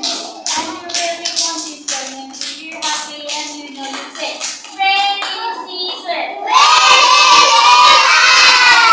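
A class of young children clapping in a steady rhythm, about three claps a second, with a sung chant. From about six and a half seconds in, many children's voices shout together loudly and hold it.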